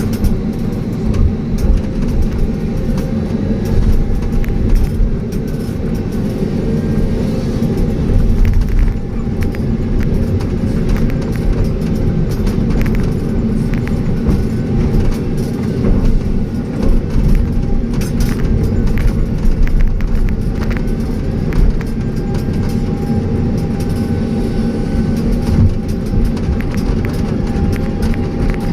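Excavator diesel engine running steadily under load, with scattered knocks and clatter from the bucket working the soil.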